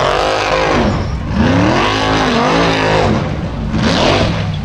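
A Formula Offroad buggy's engine revving hard under load as it claws up a steep dirt cliff, the pitch sweeping up and falling back several times.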